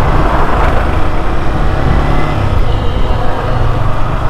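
Loud, steady rumble of a vehicle travelling on a road, with no distinct events.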